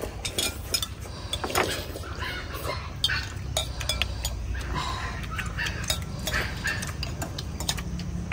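Metal spoons and chopsticks clinking and scraping against porcelain soup bowls as people eat crab noodle soup, in short, irregular clicks over a steady low rumble.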